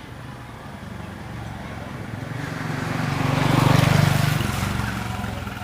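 A motor vehicle passing by: its engine grows louder, is loudest about three and a half seconds in, then fades away.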